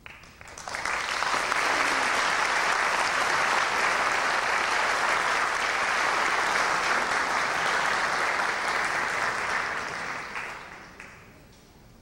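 Audience applauding the end of an orchestral piece. It swells within the first second, holds steady, then dies away near the end.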